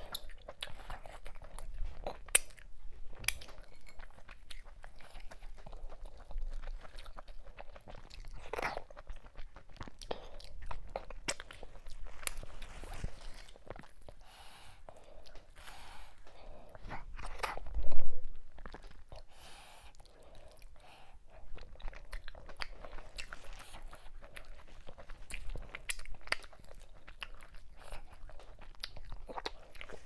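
Close-miked chewing and mouth sounds of someone eating fufu with ogbono soup by hand: wet, sticky chewing with many small clicks. One much louder thump comes a little past the middle.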